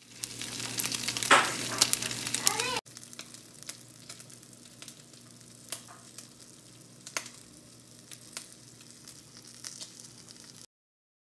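Pancake batter being stirred in a mixing bowl for about three seconds, a busy clattering with many sharp clicks. After an abrupt cut, batter is poured into a hot oiled frying pan and sizzles quietly and steadily with occasional pops.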